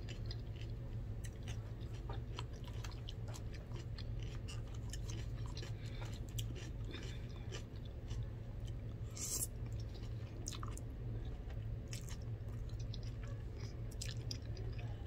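A person chewing and eating close to the microphone: wet mouth smacks and many short clicks of a fork against a plastic food container, one louder click about 9 seconds in, over a steady low room hum.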